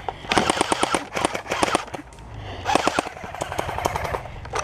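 Airsoft guns firing rapid full-auto bursts: two strings of fast, evenly spaced cracks, the second starting a little over halfway through.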